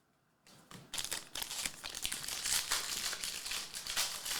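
Foil wrapper of a Topps baseball card pack being torn open and crinkled: continuous crackling rustle with many sharp clicks, starting about half a second in.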